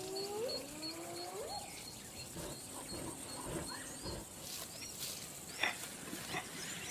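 Quiet African bush ambience of wild animal and bird calls. A high, short chirp repeats about four times a second through the first half, and two or three rising calls glide up in pitch in the first second and a half, with scattered faint chirps and ticks after.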